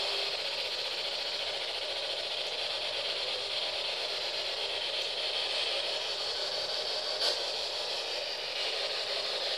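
Steady hiss of radio static, with a faint steady hum that cuts off just after the start and a single sharp click about seven seconds in.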